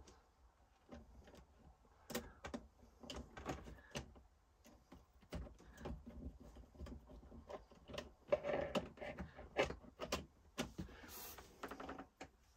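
Irregular clicks, taps and scraping of a plastic socket faceplate being handled and pressed into position against a metal panel while its screw holes are lined up.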